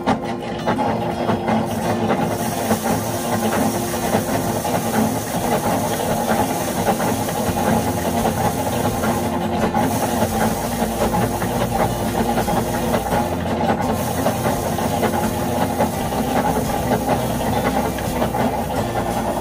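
Foot-pedal rice thresher running: its wire-toothed drum spinning with a steady, noisy whir as rice sheaves are held against it to strip the grain.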